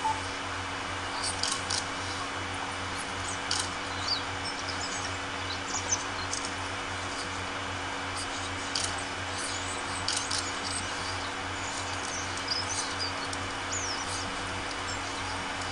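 Ambience of a hushed crowd in silent prayer: a steady hiss and low electrical hum, with scattered short high-pitched chirps and brief clicks every second or two.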